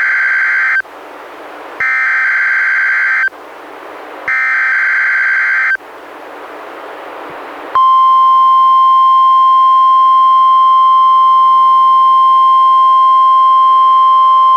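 NOAA Weather Radio SAME header for a Required Weekly Test: three screechy digital data bursts, each about a second and a half long with a second of static hiss between them. About eight seconds in, the steady 1050 Hz warning alarm tone begins and holds. Heard through a weather radio receiver.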